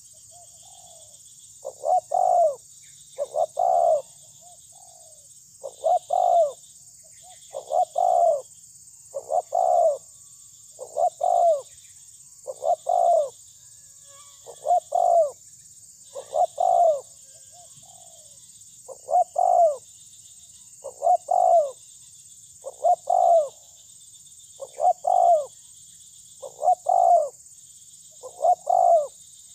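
Spotted dove cooing: short phrases of two or three coos, repeated steadily about every two seconds.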